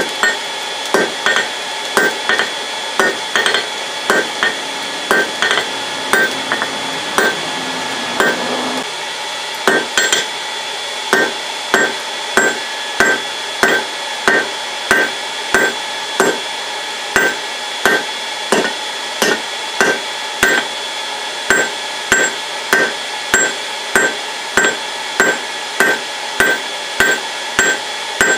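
Hand hammer striking red-hot half-inch steel stock on an anvil, about two blows a second, each blow ringing off the anvil, with a short pause about nine seconds in. The blows are drawing the bar down to a tapered point.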